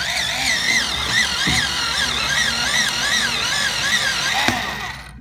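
Electric pencil sharpener running with a pencil held in it, grinding with a wavering whine. Its motor cuts off suddenly near the end.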